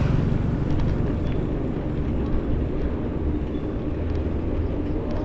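Steady low rumble of wind and road noise from a moving bike, with a faint steady hum underneath.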